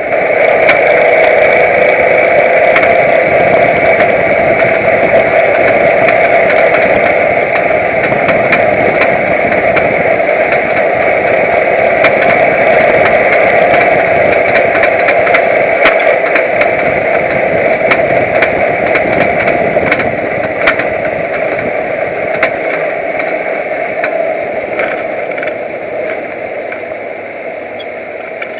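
Truck running with a steady whine and scattered sharp ticks, a new noise that appeared after off-road trail driving and that the owner thinks doesn't sound good. It fades a little over the last few seconds.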